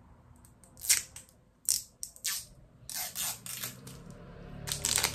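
Thin protective wrapper being peeled and torn off a dropper bottle of face primer serum: a series of short crackles, with a quicker run of them near the end.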